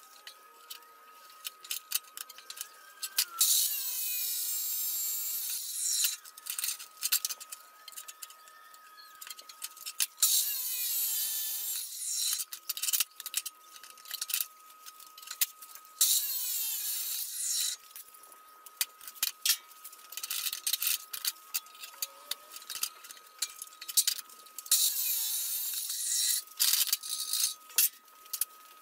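Abrasive chop saw cutting metal bar: four short cuts of about two seconds each, with clicks and clanks of the metal and vise being handled between cuts.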